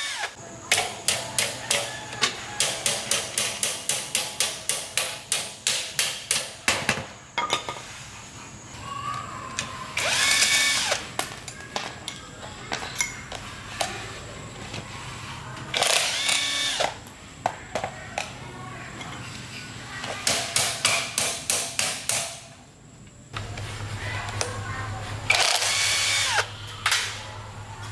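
Workshop tool work: a run of rapid, even strokes at about four a second, then three short bursts of a pitched power tool, each a second or two long, with more strokes in between.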